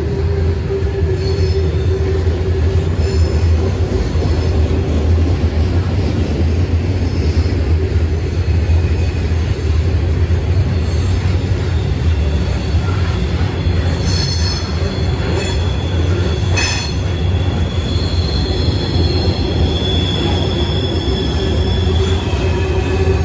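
Norfolk Southern freight cars rolling over a railroad bridge overhead: a loud, steady low rumble with a steady wheel-squeal tone. Higher-pitched squeals come and go in the second half, with one sharp clank about two-thirds of the way through.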